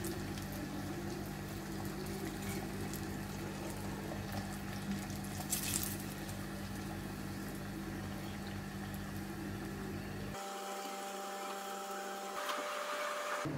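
Chicken strips sizzling and bubbling in hot frying oil as they are lifted out with tongs, over a steady low hum, with a sharper burst of sizzle about halfway through. About ten seconds in the sound cuts abruptly to a thinner, quieter background with faint steady tones.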